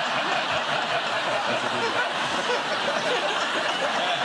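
A studio audience laughing, a dense crowd laugh that holds steady.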